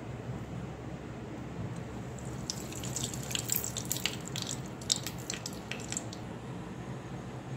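Cooking oil heating in an aluminium pressure cooker, crackling and spitting with irregular sharp pops for a few seconds in the middle, over a low steady hum.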